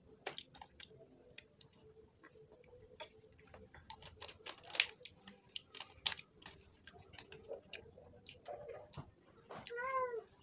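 Irregular small clicks and smacks of close-up eating, a mouth working at a sauce sachet and crispy fried chicken. Near the end a cat meows once, its pitch rising and then falling.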